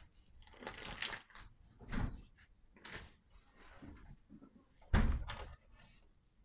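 Kitchen utensils being handled and set down on a stainless steel worktop: a string of light knocks and clatters, with one heavier thump about five seconds in.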